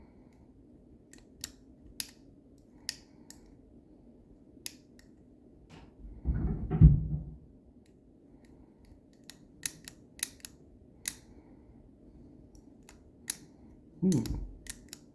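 Lever lock being picked: a dozen or so sharp, irregular metal clicks of the pick and levers inside the lock. Two louder, lower rumbles come about six seconds in and again near the end.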